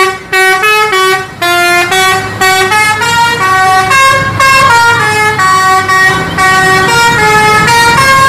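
Tour coach's multi-tone musical 'telolet' horn playing a quick tune, note after note at a few notes a second, with two brief breaks in the first second and a half.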